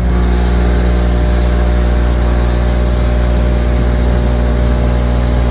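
Dry copy milling of FCD550 ductile cast iron: a CNC spindle at 3600 rpm drives a 40 mm two-flute ball-nose copy mill through the cut. The sound is a loud, steady cutting hum made of evenly spaced tones.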